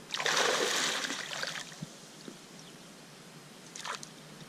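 Water splashing and trickling at a fishing keepnet, loudest for the first second and a half and then dying down.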